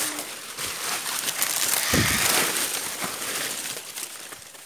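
Dry leaves, twigs and brush crackling and crunching as someone pushes through thick undergrowth, with a heavy thump about two seconds in.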